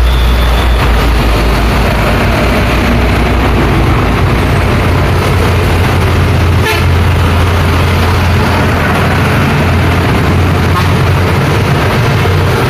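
Busy road traffic: truck and car engines passing with a steady low rumble and tyre noise. A short vehicle horn toot sounds near the start, and a single sharp knock comes about halfway.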